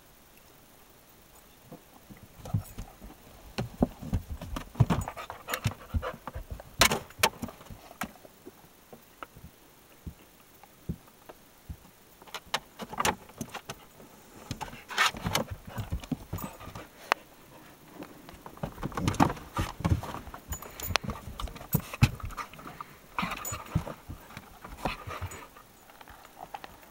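Dog panting and scuffling as it play-wrestles with a cat, with many irregular knocks and clicks from the tussle.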